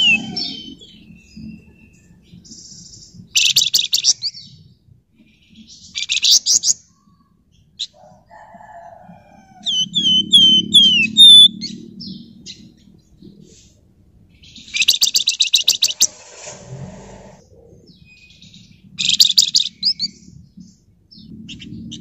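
Flamboyan songbird singing: several short, rapid rattling trills, and about halfway through a quick run of downslurred whistled notes.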